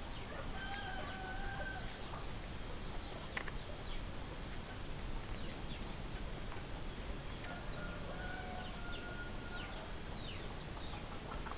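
Rooster crowing twice, each a long held call, about a second in and again about eight seconds in, with scattered short high chirps between them over a steady background hiss.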